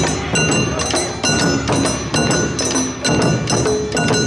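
Awa odori festival music: drums and ringing hand gongs (kane) striking a brisk, steady beat, about three strikes a second.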